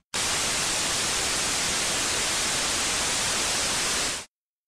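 Untuned analogue television static: a steady hiss that cuts off suddenly near the end.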